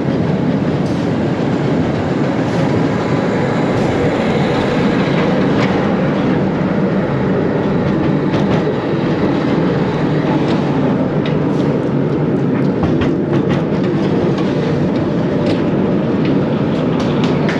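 Roller coaster train rolling along its steel track: a steady rumble of wheels, with scattered clicks in the second half.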